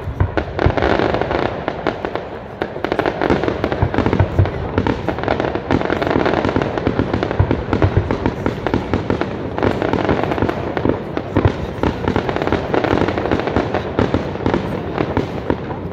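Fireworks display going off in rapid succession: a dense, continuous run of booms and crackling bursts.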